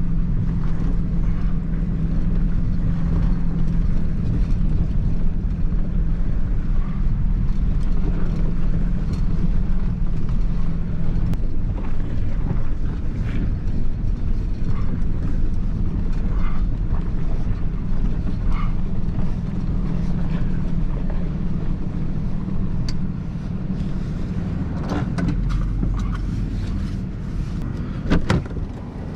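Vehicle driving, heard as a steady low engine and road rumble. From about three-quarters of the way through come scattered sharp knocks and rattles.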